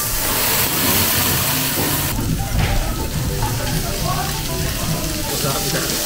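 Bone-in pork belly sizzling on a hot stone griddle, a steady hiss that dips briefly about two seconds in, over quiet background music.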